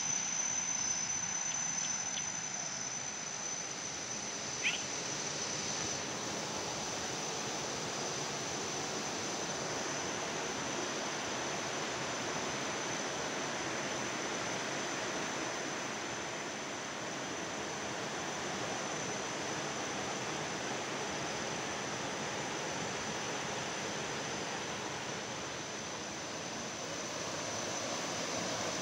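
Woodland ambience: a steady rushing noise with a constant high-pitched insect drone over it, and one short chirp about five seconds in.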